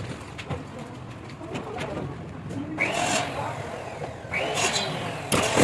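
Small electric power tool, such as a drill or drywall screw gun, run twice in short bursts of about a second each. Its whine climbs at each start and then holds steady.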